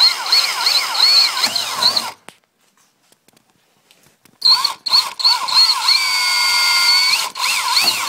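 Power drill boring through masking tape into the deck of a Resolute racing shell, opening small pilot holes out to a larger size. Two runs of drilling with a pause of about two seconds between them, the motor speed wavering up and down as the trigger and load change.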